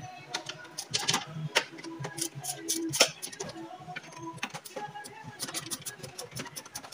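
Irregular metal clicks and knocks from hand tools working on a van seat's mounting bracket as the seat is fastened back to the floor, several a second, with one sharper knock about three seconds in. Faint music plays underneath.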